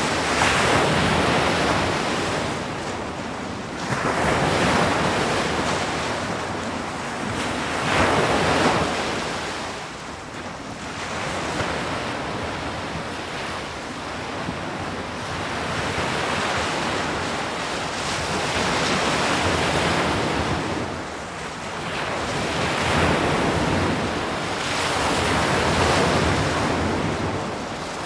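Ocean waves breaking on a shore, a steady wash of surf that swells and recedes every few seconds.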